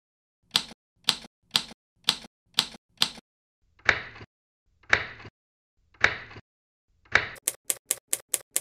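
Typewriter key strikes, a sound effect with one strike per letter as a title is typed out. Six sharp clicks come about two a second, then three slower, heavier strikes, then a quick run of clicks near the end.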